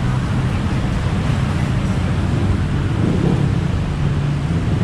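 Steady road-traffic rumble, a continuous low drone of vehicle engines and tyres.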